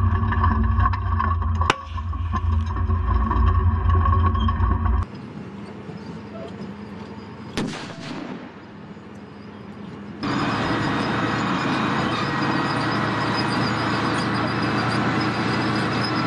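Heavy tracked armoured vehicle running with its mine trawl, a low, loud drone with a sharp crack about two seconds in. After a cut, a single explosion about halfway through, then from about ten seconds the steady loud rush of the tracked vehicle running close by.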